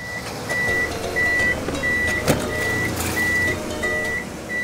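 Electric forklift's warning alarm beeping at one high pitch, about three beeps every two seconds, with a single sharp knock about two seconds in.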